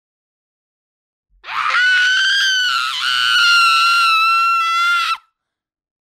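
One long, high-pitched human scream. It starts about a second and a half in, holds its pitch for nearly four seconds with a brief dip midway, then cuts off.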